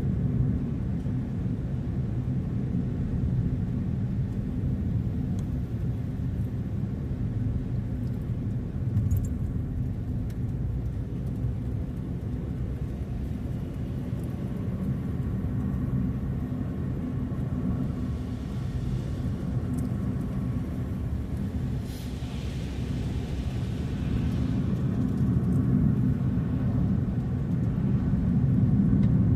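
A car being driven, with a steady low rumble of engine and road noise that grows louder in the last few seconds.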